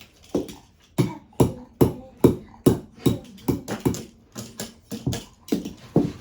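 French bulldog barking over and over, about two to three short barks a second.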